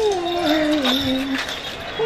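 A single held tone, wavering and slowly sliding down in pitch, that stops about one and a half seconds in, with a few light clicks around it.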